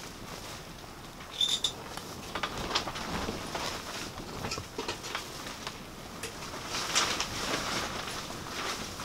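Small metal clicks, taps and scrapes as an oil lantern's burner is set onto its fuel font and screwed down by hand, with a short high squeak about one and a half seconds in.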